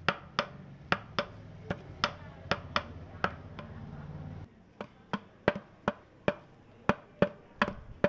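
Backing track of sharp, evenly paced clicks, about two or three a second in uneven pairs like a clock's tick-tock, over a low hum that drops out about halfway.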